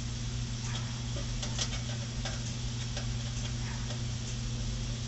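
Scattered light clicks and taps of small metal parts being handled, likely the nameplate screws going in, over a steady low hum.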